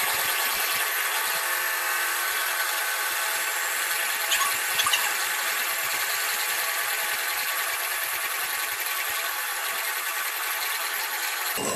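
Electric hand mixer running steadily, its beaters whipping egg whites in a glass bowl into Italian meringue while sugar syrup is added. A few light clicks come about four to five seconds in.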